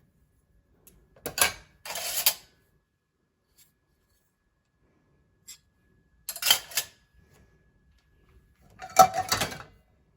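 Clean dishes clinking and clattering as they are handled, in four short bursts: about a second in, near two seconds, a little after six seconds and near nine seconds.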